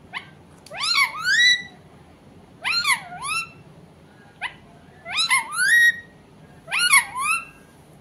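Rose-ringed parakeet calling in four short bursts, each a quick run of rising and falling notes, spaced about two seconds apart.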